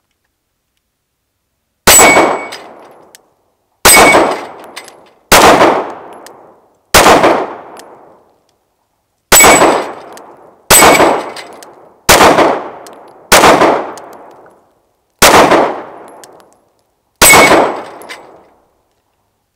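A Glock 19 9mm pistol with a Brownells slide firing ten single shots at an uneven pace, one to two seconds apart, each shot trailing off over about a second. Steel target paddles ring as they are hit, and the pistol cycles through the ETS magazine with no malfunction.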